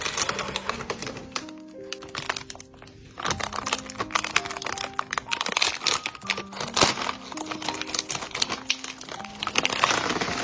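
Dense, rapid crisp crackling and clicking over soft background music with a slow stepping melody.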